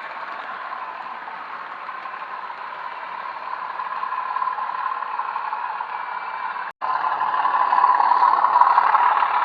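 Model train running on the track: a steady running rumble and rattle of wheels and motor that grows louder about four seconds in. A split-second gap comes about seven seconds in, and afterwards it is louder still.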